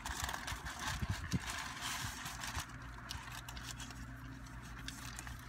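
Paper food wrapper crinkling and rustling as it is handled, with some chewing, in quick irregular crackles that are busiest in the first few seconds. A steady low hum of the car runs underneath.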